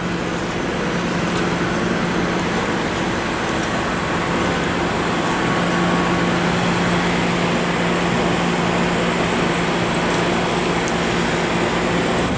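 Steady city street noise: traffic running by, over a continuous low hum.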